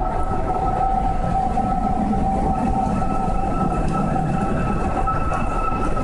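Steady two-tone whistling drone over a low rumble of wind, the sound of strong wind blowing through the nearly finished One World Trade Center tower. It is not a police siren.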